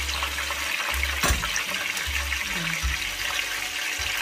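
Battered slices of sweet potato and apple deep-frying in hot oil: a steady crackling sizzle, with one sharp knock about a second in.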